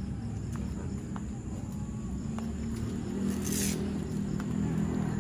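A dog growling low and without a break, louder from about halfway through. A brief hiss comes about three and a half seconds in.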